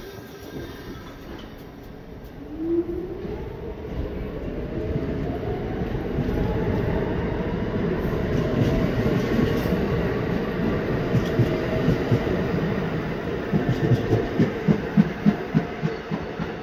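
R46 subway train pulling out: its traction motors start a whine about two and a half seconds in that rises in pitch as the train speeds up, over a growing rumble of wheels on rail. Near the end comes a rhythmic clickety-clack of the wheels passing over rail joints.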